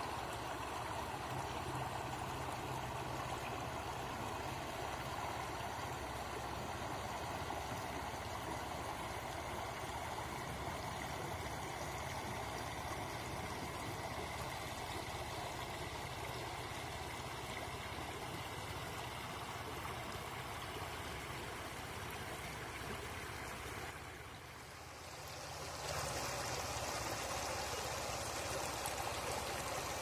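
Shallow river water flowing and rippling over stones, a steady rushing babble. About three quarters of the way through it dips briefly, then comes back brighter and hissier.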